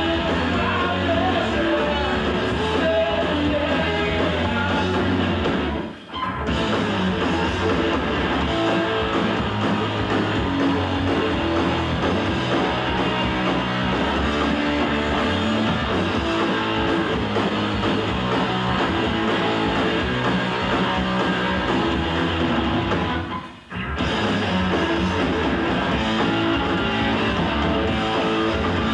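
Live rock band playing: electric guitars and drum kit. The whole band stops for two brief breaks, about six seconds in and again about twenty-three seconds in, then comes straight back in.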